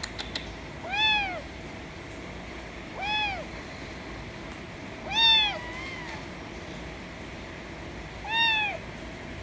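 A kitten meowing loudly four times, with a pause of two to three seconds between calls. Each meow lasts about half a second and rises then falls in pitch.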